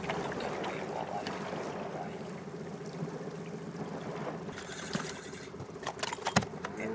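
Small boat's outboard motor running slowly at trolling speed, a steady low hum. Near the end come a few sharp clicks and one louder knock.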